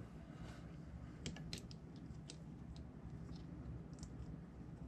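Faint, scattered clicks and ticks of small plastic and metal parts being handled and fitted onto a carbon-fibre FPV racing quad frame, over a low steady hum.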